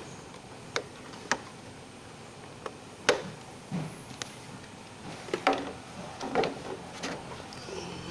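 Irregular sharp clicks and knocks from hand work on the motorcycle around its battery and battery cover.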